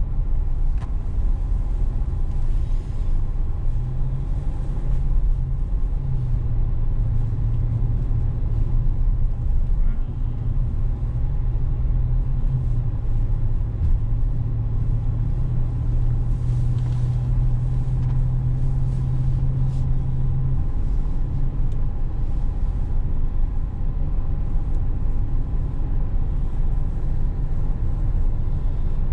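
Car driving at steady speed, heard from inside the cabin: a steady low rumble of road and engine noise. A low, even hum sits over it from about four seconds in until about twenty seconds in.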